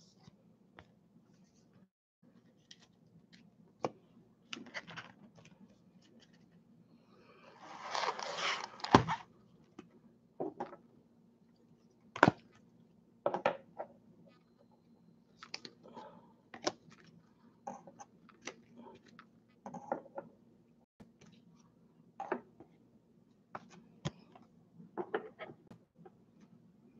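Hard plastic card holders clicking and tapping as they are set down one by one on a wooden table, with scattered handling noises. About eight seconds in there is a longer rustle of cardboard packaging ending in a thud.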